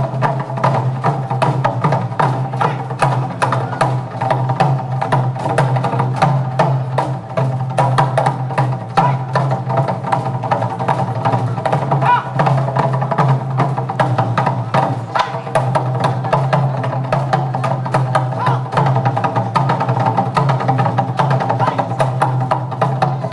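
Korean drum ensemble playing buk drums in a fast, dense rhythm of rapid strikes, over a backing of steady held notes.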